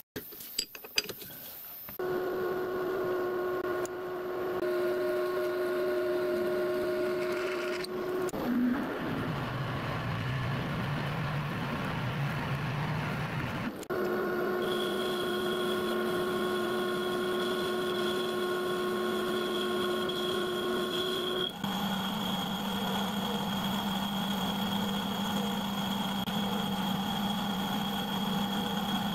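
Metal lathe running steadily while a boring tool cuts out the bore of a 2-inch metal suspension boss to take a bearing. The machine's hum changes abruptly a few times.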